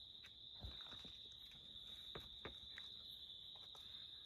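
Faint, steady high-pitched insect drone, with a few soft taps and scuffs of a climber's hands and shoes on the sandstone.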